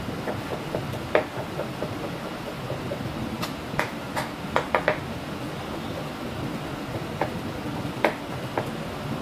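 Kitchen work clatter: a dozen or so irregular sharp knocks and clinks of utensils and cookware, bunched in a quick run in the middle, over a steady background noise.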